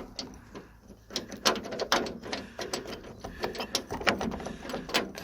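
A badly worn metal door hinge from a Land Rover Defender 90 being worked back and forth, giving a fast, irregular series of metal clicks and clunks from about a second in. The hinge pin is worn and the hinge has a lot of play.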